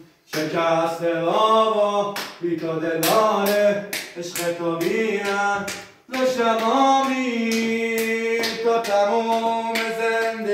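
A man singing a slow melody in long held notes, with a short break about halfway through. Sharp clicks are scattered through the singing.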